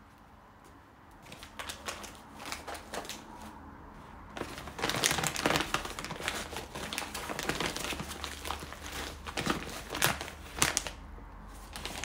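Stiff sego gele headwrap fabric crinkling and rustling as hands shape and adjust the tied wrap. It starts lightly about a second in and grows louder and denser from about four seconds in.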